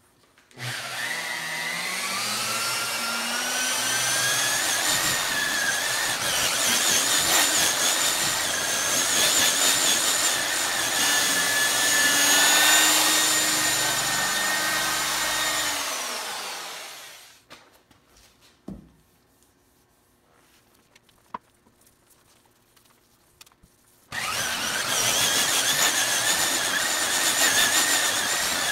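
Electric buffer polishing car paint with a compounding pad and polish. It spins up with a steady motor whine, winds down about 16 seconds in, and then there are several seconds of near silence with a couple of light clicks. It starts up again abruptly near the end.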